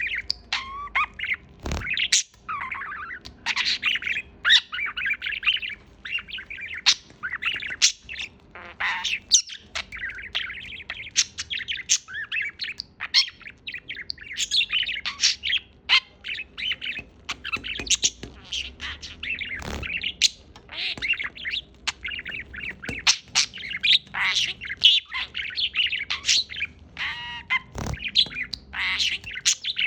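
Pet parrot chattering in a steady stream of short squawks, chirps and whistled glides.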